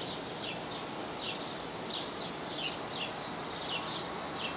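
Birds chirping outdoors: short, high, downward-sliding chirps repeating about three times a second over a steady background hiss.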